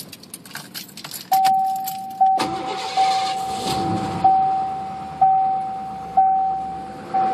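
Keys rattling at the ignition, then a car's warning chime dinging about once a second. About two and a half seconds in, the engine cranks, starts and settles into a steady idle under the chime.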